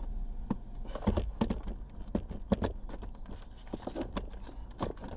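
Plastic center-console trim pieces being pushed and pressed into place, giving a run of irregular clicks, taps and knocks.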